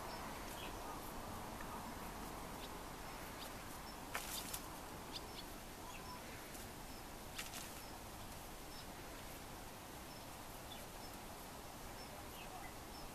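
Faint outdoor ambience with small birds chirping here and there, and a few short scratches and clicks from ferrets digging in loose potting soil, a cluster about four seconds in and another at about seven seconds.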